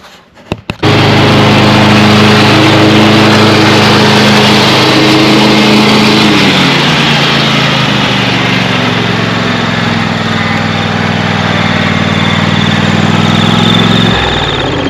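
Craftsman riding mower's 24-horsepower Briggs & Stratton V-twin engine running steadily and smoothly, with no coughing, sputtering or misfiring, now that it fires on both cylinders after the carburetor rebuild. It starts abruptly about a second in, sags slightly in pitch around the middle, and drops in level shortly before the end.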